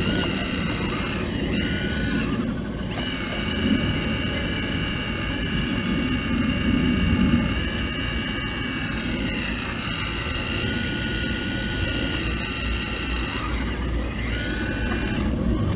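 Caterpillar 235 excavator working: its diesel engine runs steadily, with a low rumble under a high whine that shifts up and down in pitch a few times. The high whine drops out briefly about two and a half seconds in and again near the end.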